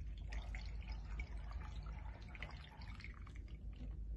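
Orange cocktail poured in a thin stream from a stainless steel cocktail shaker into a glass of ice: irregular liquid splashing and dripping, over a low steady hum.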